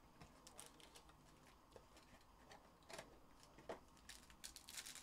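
Near silence with faint scattered ticks from hands handling a cardboard trading-card box and a foil card pack, the crisp little clicks crowding together near the end.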